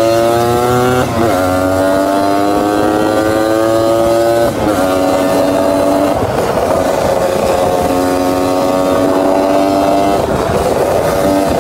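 Motorcycle engine running hard under acceleration, its pitch climbing steadily and then dropping suddenly about a second in and again about four and a half seconds in as it shifts up through the gears, then holding fairly steady.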